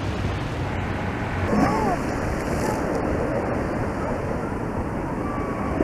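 Steady seaside noise: small waves washing onto the beach, with wind rumbling on the microphone.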